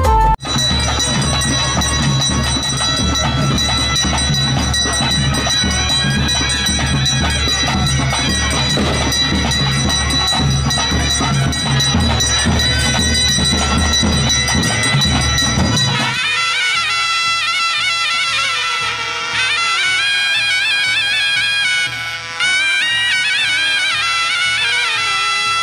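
Traditional ritual music: a steady drum beat under a held, droning wind-instrument tone. About two-thirds of the way through the drums drop out and a reed wind instrument carries on alone with a wavering melody.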